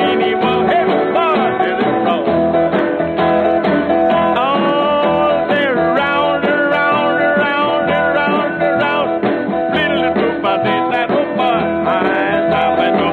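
A male jazz singer sings a novelty song over his own strummed archtop guitar. The sound is narrow, with the high end cut off, as on an old kinescope soundtrack.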